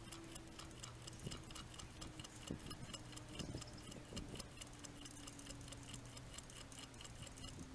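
Fast, even ticking, about six clicks a second, with a few soft low knocks partway through.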